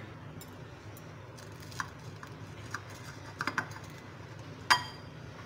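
Cutlery clicking against a glass plate while cutting a toasted sandwich: a few scattered clicks, a quick run of three about three and a half seconds in, and one louder ringing clink near the end. A low steady hum runs underneath.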